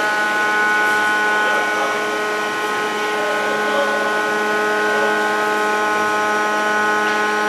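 Steady machine hum: many unchanging tones over a noisy background, running evenly with no breaks.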